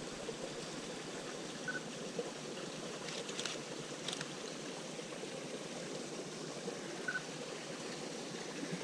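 Steady rushing of a mountain stream and waterfall, with a few faint clicks about three to four seconds in.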